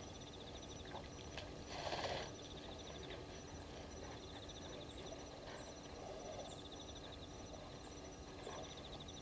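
Night-time bush chorus of insects: steady, rhythmic high chirping trills repeating at even spacing. A brief rushing noise about two seconds in is the loudest thing.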